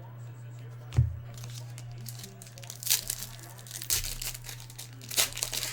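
A trading-card pack's foil wrapper being torn and crinkled, in a run of sharp crackles over the last few seconds, after a soft thump about a second in. A steady low electrical hum runs underneath.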